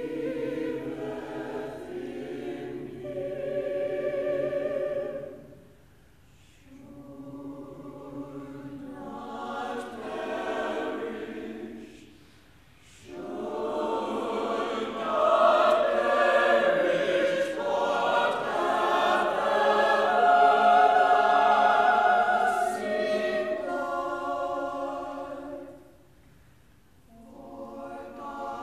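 Mixed church choir singing in parts under a conductor, phrase by phrase with short pauses about 6, 12 and 26 seconds in, and growing loudest in the middle.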